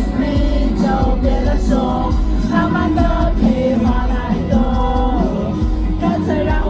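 Live pop-rock band playing through a PA system, with a lead vocal singing a melody over a steady bass and drums.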